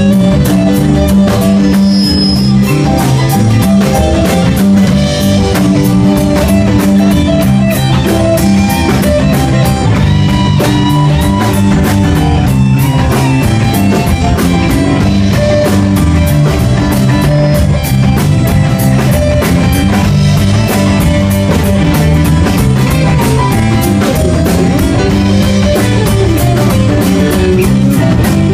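Rock band playing, electric guitar over a drum kit keeping a steady beat.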